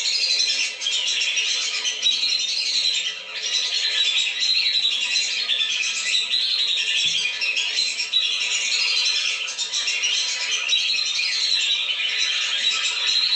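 A flock of lesser whistling ducks (belibis) calling: a dense, unbroken chorus of high, overlapping whistles and chatter. This is a lure-call recording for drawing the ducks down.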